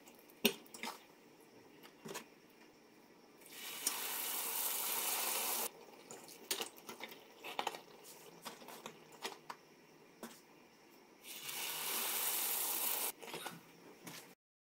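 Hot vegetable oil sizzling in a stainless-steel frying pan in two stretches of about two seconds each, with light clicks of a metal fork and spatula against the pan as fried pies are lifted out.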